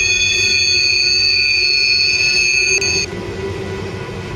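Loaded tank cars of a freight train rolling past, with a steady high-pitched wheel squeal of several tones at once over the low rumble of the cars. The squeal cuts off suddenly about three seconds in, leaving the quieter rumble of the rolling cars.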